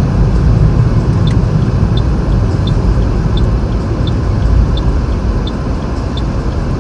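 Steady road and engine rumble inside a moving car driving on a snowy road on studded winter tyres. A light high tick repeats about every two-thirds of a second over it.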